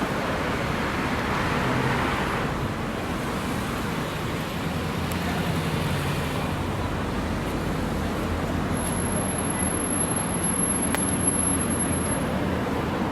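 Steady road traffic on a busy city street: vehicles running past with a low engine hum. A thin high-pitched tone sounds for about three seconds in the second half.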